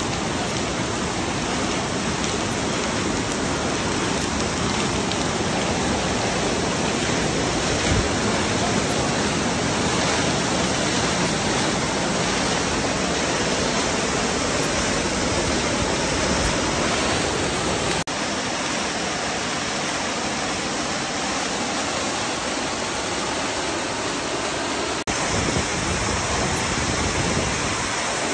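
Floodwater rushing and cascading, a steady loud rush of water, broken twice by brief dropouts.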